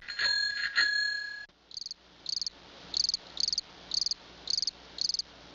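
A bicycle bell rings twice and is cut off about a second and a half in. Then a cricket chirps steadily, short pulsed chirps about twice a second.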